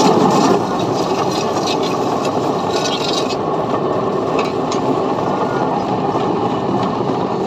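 A centrifugal concrete-pipe spinning machine running: the steel pipe mould turning on its drive wheels with a steady, loud rumble and rattle, with extra scraping clatter over the first few seconds.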